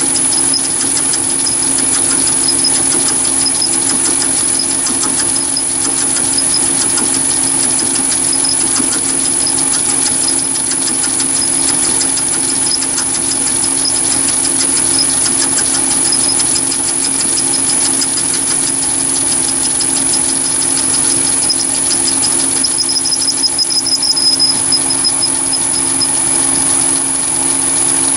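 Chinese mini lathe running steadily, an end mill in its chuck milling a slot into a brass tube held in a toolpost vice: a steady motor hum with a constant high-pitched whine. Late on, a few seconds of louder, rapid chatter from the cut.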